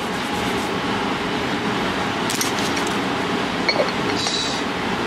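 A few light clinks and a short scratchy rustle as small tools, a stone seal and paper are handled on a desk, over a steady background hum.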